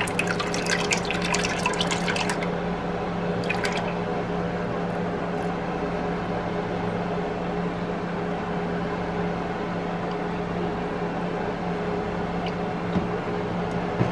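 Cooking oil poured from a bottle into an electric deep fryer's basket and pan, a splashing pour for about two and a half seconds with one more short splash a second later. After that only a steady electric fan hum remains.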